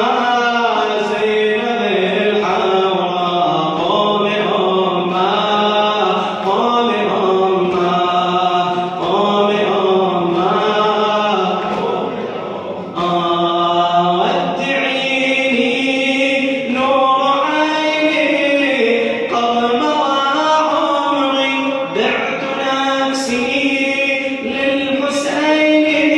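Unaccompanied male voices chanting a slow Shia Muharram lament melody in long, drawn-out notes over a held low note, with a brief break about halfway through.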